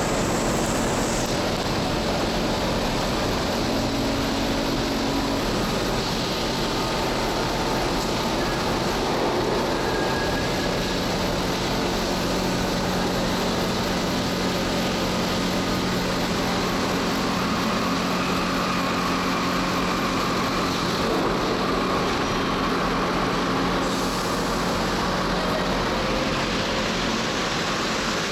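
NS-74 rubber-tyred metro train at a station platform, running with a steady hum and noise from its equipment, then moving off near the end.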